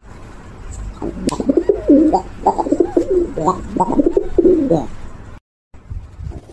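Doves cooing in a run of wavering, rising and falling coos that starts about a second in and cuts off suddenly near the end.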